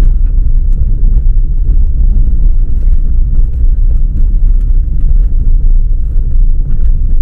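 Car driving on an unpaved dirt and gravel road, heard from inside the cabin: a loud, steady low rumble of tyres and suspension, with scattered small ticks and rattles.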